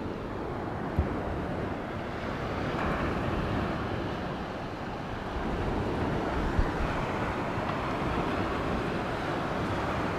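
Steady rush of wind over the microphone with sea surf behind it, broken by two brief knocks, about a second in and a little past halfway.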